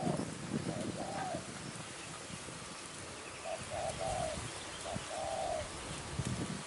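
Spotted dove cooing in short phrases: a coo at the start and another about a second in, then a run of quick short notes ending in a longer coo about three and a half seconds in, and one more drawn-out coo about five seconds in, over low rustling noise.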